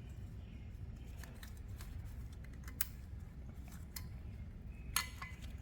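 Scattered light metal clicks and taps of a locking ring being fitted and worked around the axle nut on a truck wheel hub, over a steady low hum.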